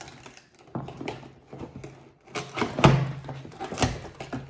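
Hands struggling to open a hard-to-open toy box's packaging: irregular scraping and rustling, with sharp knocks about two and a half seconds in and again near four seconds.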